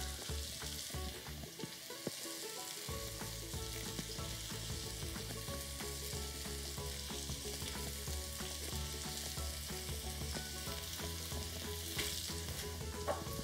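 Sliced red onions, garlic and fresh thyme sizzling steadily in olive oil in a frying pan over high heat, sautéing.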